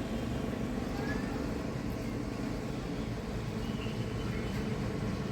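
Steady low rumble of background traffic noise, with a few faint, brief bird chirps.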